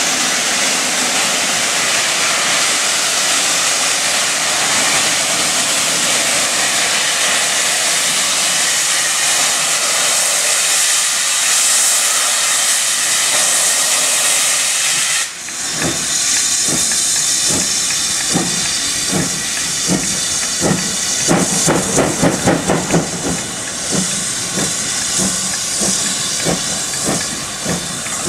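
BR Standard Class 7 'Britannia' Pacific steam locomotive 70013 Oliver Cromwell: a steady loud hiss of steam for about fifteen seconds, then exhaust beats start as it pulls away, slow chuffs quickening to about three a second.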